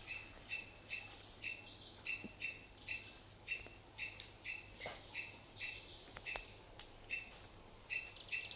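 A small animal calling in a long, even run of short, sharp high notes, about two or three a second.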